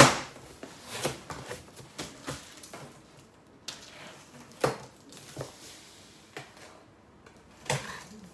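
Cardboard shipping boxes being handled and cut open: a string of irregular knocks, scrapes and rustles of cardboard, the sharpest right at the start.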